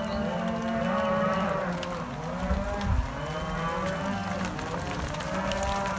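A herd of suckler cows and calves mooing, many calls overlapping without a break.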